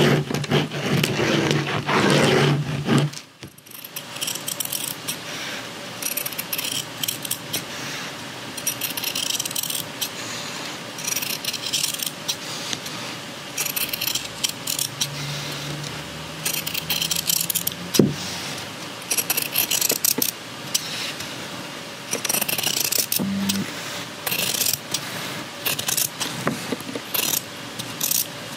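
Fabric scissors cutting through cotton cloth in a run of short, crisp snips, one every second or two, with one sharp click about halfway through. The first three seconds hold a louder scraping of a fabric pen drawn along a plastic ruler on the cloth.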